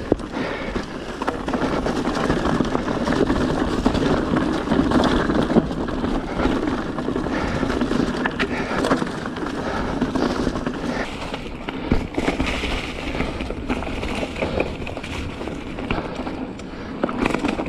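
Full-suspension mountain bike riding over a rocky, frozen trail: a steady rattle of tyres, chain and suspension over rock, broken by sharp knocks from hits, with wind rushing over the chest-mounted camera.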